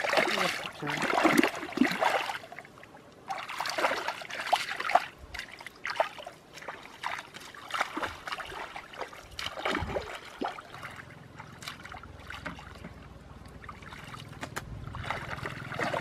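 Feet wading through shallow muddy water, sloshing and splashing with each step, loudest in the first five seconds and fainter after that.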